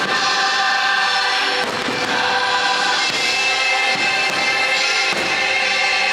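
Christmas show music with a choir singing, with several fireworks bangs going off through it.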